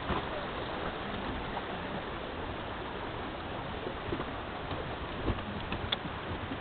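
Steady rush of flowing water, with a few faint ticks near the end.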